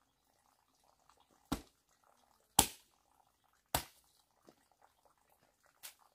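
Three sharp knocks about a second apart, each dying away quickly, then a fainter knock near the end.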